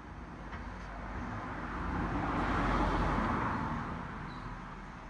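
A passing vehicle: tyre and road noise swells to a peak about halfway through, then fades away.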